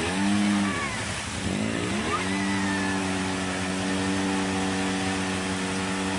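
Polaris RZR4 side-by-side engine revving as it drives through mud: the revs rise and drop twice in the first two seconds, then hold steady and high for the rest.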